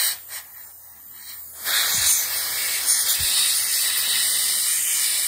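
Compressed-air blow gun hissing as it blows air into a flooded chainsaw's carburetor to clear out the excess fuel: a short blast at the start, then a long, steady blast from under two seconds in.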